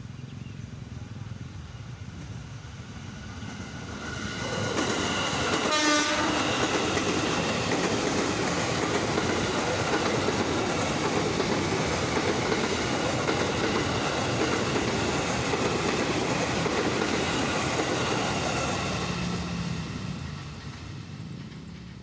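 KRL Commuter Line electric train passing close by: a steady rumble of wheels on the rails builds from about four seconds in and fades near the end, with a thin steady high whine above it. A short horn blast sounds about six seconds in.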